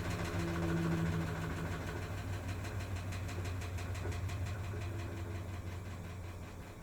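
Maytag MVWP575GW commercial top-load washer running in its drain and spin test: a steady mechanical hum with fast faint ticking, easing off near the end as the machine winds down.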